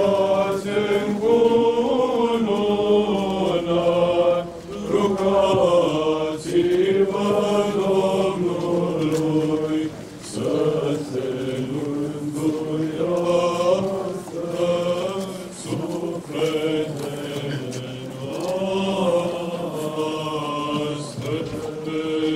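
Orthodox liturgical chant in Byzantine style: voices singing a hymn without accompaniment, a slow melody of held, bending notes broken by short pauses for breath.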